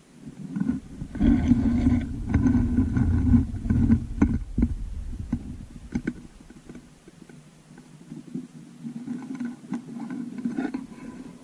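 Handling noise of the camera being picked up and moved: a low rumble with rustling for a few seconds, then several sharp knocks, and more rustling near the end.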